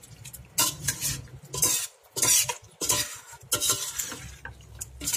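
A metal spoon stirring and scraping through thick chicken masala in a stainless steel pot, with a rough scrape against the pot about once a second.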